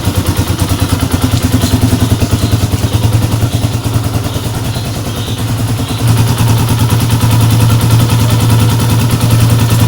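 RC250 motorcycle's carbureted engine idling steadily after a cold start without choke, running smoothly on a freshly cleaned carburetor; it gets louder about six seconds in.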